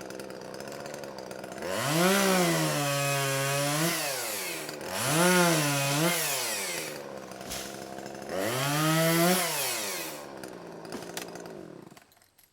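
Chainsaw idling, then revved up three times to cut small trees, each rise held for a second or two before dropping back to idle. It dies away near the end.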